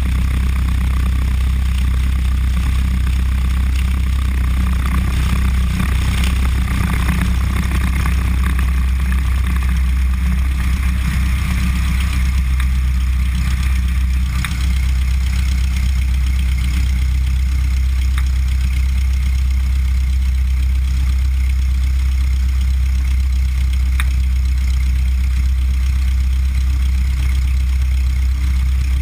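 Cessna 172's piston engine running steadily at low power with its propeller turning as the plane rolls out and taxis, a continuous low drone. Wind rush on the outside-mounted microphone fades over the first second or so as the plane slows.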